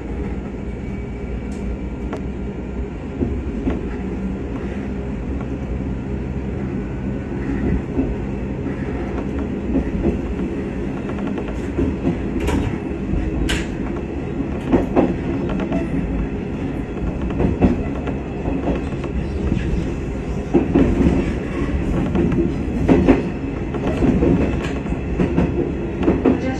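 Diesel railcar under way, heard from inside its cab: a steady engine drone with the wheels clicking over rail joints. Sharp knocks through the points come more often in the second half.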